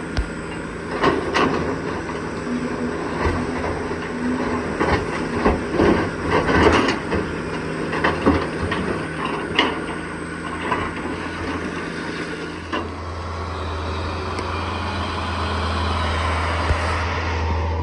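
Diesel heavy equipment running, with a string of sharp metallic clanks and knocks over the first ten seconds or so. About thirteen seconds in the clanking stops and it settles into a steadier, deeper engine drone.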